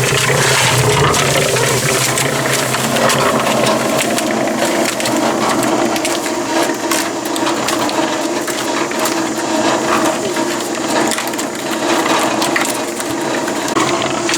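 Concrete mixer drum turning over a steady motor hum, with sand churning inside it in a gritty scrape full of small clicks.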